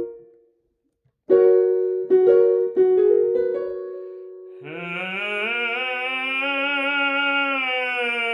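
Piano plays three notes, the first about a second in. Then a tenor sings a sustained 'e' vowel that glides slowly up and back down over a held piano note: a glissando-on-fifths vocal warm-up.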